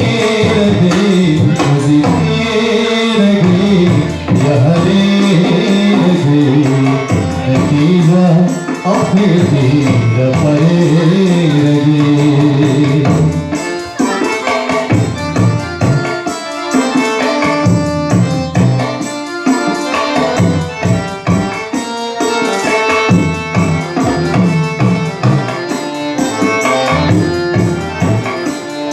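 Nepali song: a voice sings a long, sliding melodic line over the accompaniment, then about halfway through the singing gives way to an instrumental passage driven by tabla drumming.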